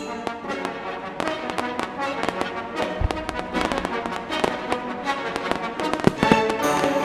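Fireworks crackling and popping in quick succession over loud show music, with a heavier bang about three seconds in and a few more close together near the end.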